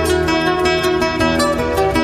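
Background music: a solo acoustic guitar playing fast plucked notes that ring over a low sustained bass.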